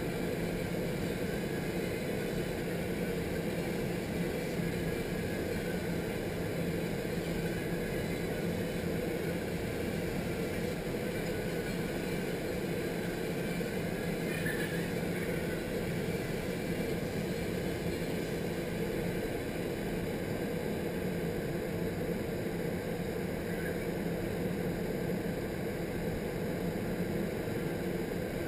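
Steady rushing noise of a vertical indoor skydiving wind tunnel's airflow and fans, running at flight speed, with a low steady hum under the rush of air.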